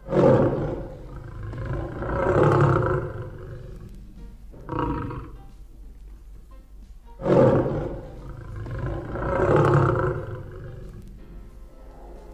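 Loud, rough animal roars, one after another about every two to two and a half seconds, some short and some drawn out over a second or so.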